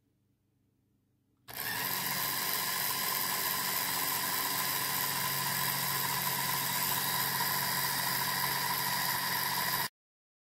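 Lego Powered Up electric motor running steadily, driving a Lego Technic chain and sprockets that spin the back wheel, here with the chain on the second rear sprocket. It starts suddenly about one and a half seconds in and cuts off suddenly near the end.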